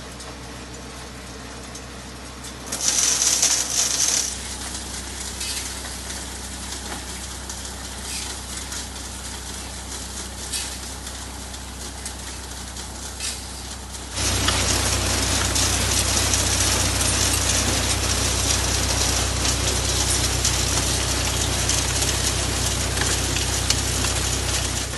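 Belt conveyors running under a load of soil and rubble, the loose material rattling and pouring, over the steady hum of an engine running. A brief burst of sharp rattling comes a few seconds in, and about halfway through the sound becomes much louder and denser.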